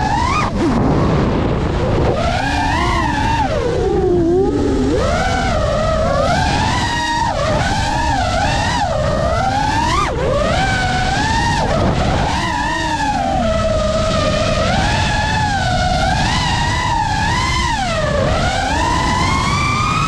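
FPV quadcopter's brushless motors and propellers whining, the pitch sliding up and down constantly as the throttle changes through the swoops, over a steady low rush of air.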